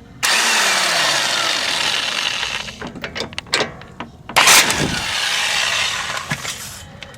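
Power tool, an impact wrench, running on the sway bar link nut in two runs: one of about two and a half seconds that starts suddenly, then a few clicks, then a second shorter run.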